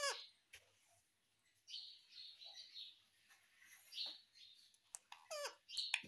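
Indian ringneck parakeet giving soft, quiet chatter between a few short squawks that fall in pitch, one at the start and one near the end.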